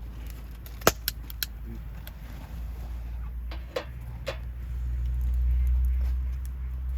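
Wood fire crackling, with three sharp pops in quick succession about a second in and two more a little before and after four seconds, over a steady low rumble that swells near the end.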